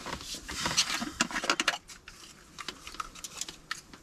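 Plastic water bottle with a thick plug of ice inside being squeezed and worked by hand: dense crinkling and crackling of the plastic with knocks of ice for about two seconds, then only scattered clicks.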